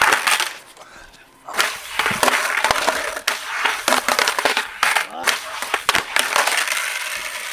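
Skateboard wheels rolling over rough asphalt with a steady grinding rumble, broken by several sharp clacks of the board's deck and trucks hitting the ground as the skater bails.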